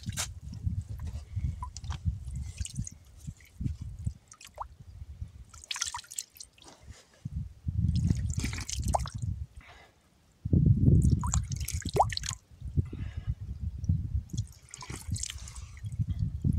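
Wet plaster being worked: dripping and squelching sounds in several spells, with short sharp strokes in between.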